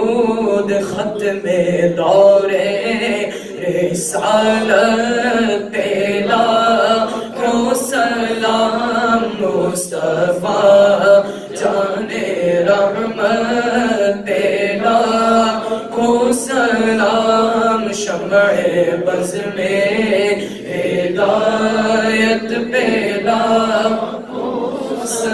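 Young male voices chanting an unaccompanied Urdu Salam, a devotional greeting to the Prophet, sung through a microphone in long, drawn-out phrases.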